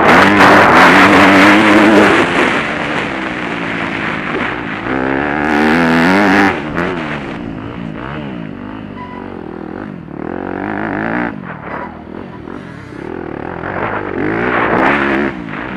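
Motocross bike engine heard from on board, revving up and dropping back again and again as the rider accelerates and shifts along the dirt track. A loud rushing noise lies over it at the start and again near the end.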